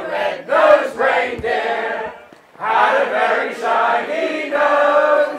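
A crowd of carol singers singing a Christmas carol together, in two phrases with a short pause about two seconds in.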